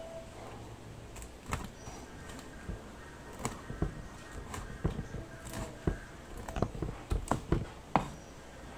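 Meat cleaver chopping diced pork fat on a wooden cutting board: sharp, uneven knocks of the blade striking the board, a few at first, then coming faster about halfway through.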